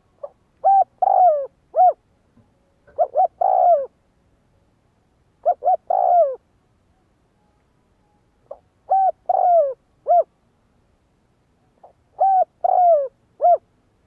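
Spotted dove cooing: five phrases of three or four short coos each, repeated about every three seconds.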